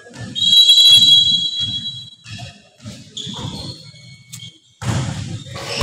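Volleyball referee's whistle blown in one long steady blast, with dull thumps repeating about twice a second underneath and a sudden burst of hall noise near the end.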